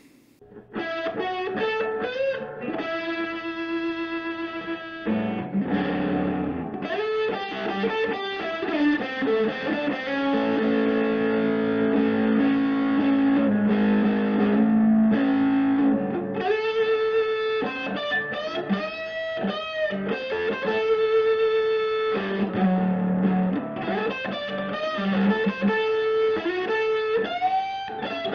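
Sunburst Les Paul-style electric guitar played through a Vox amplifier: a lead line of single and held notes with string bends, starting about half a second in.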